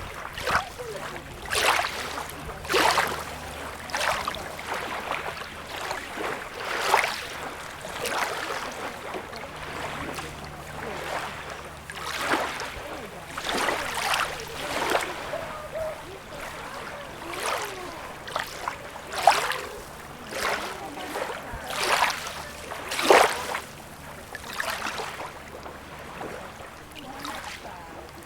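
Small sea waves lapping and splashing on a beach, in short surges of rushing water every second or two over a steady wash.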